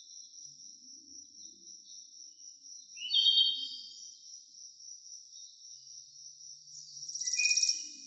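Crickets trilling steadily and high-pitched, with birds calling over them: a short phrase of a few notes about three seconds in, and a louder, fast rattling trill near the end.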